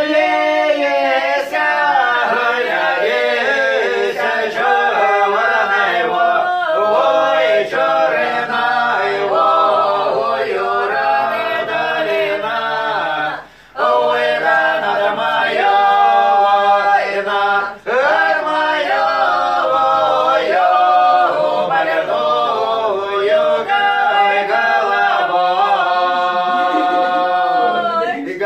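Unaccompanied choir singing, the voices holding long notes, with a short break about 13.5 seconds in and a brief dip near 18 seconds.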